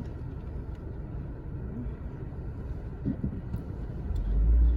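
Steady low rumble of a vehicle's engine, swelling into a louder low boom near the end.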